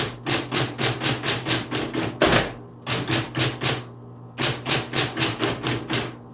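Smith Corona Coronet Automatic 12 electric typewriter being typed on: quick runs of sharp keystrokes, about five a second, with short pauses between runs, over the steady hum of its running motor.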